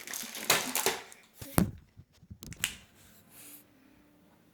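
Rummaging and handling noises: rustling and scraping, with one sharp click about a second and a half in, as things are moved about while the scissors are being fetched.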